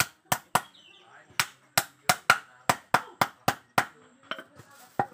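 Small hammer tapping nails into a teak wood vent frame: a quick run of sharp knocks, about three a second, the last few lighter.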